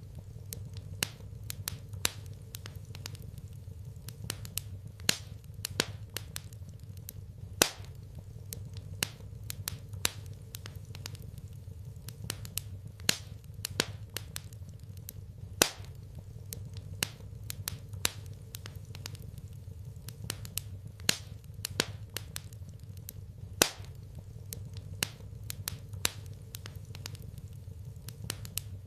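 Wood fire crackling in a fireplace: irregular sharp pops and snaps, a few louder than the rest, over a low steady rumble.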